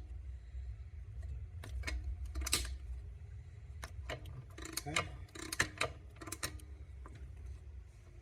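Irregular light metallic clicks and clinks of small Triumph gearbox parts and tools being handled on the bench, over a steady low hum.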